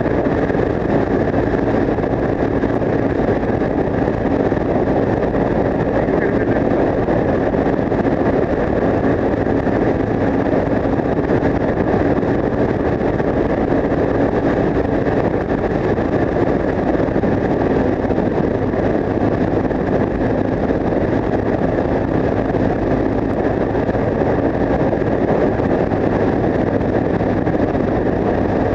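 Yamaha TW 125's single-cylinder four-stroke engine running at a steady cruising speed through an Akrapovic exhaust, with wind rushing over the microphone.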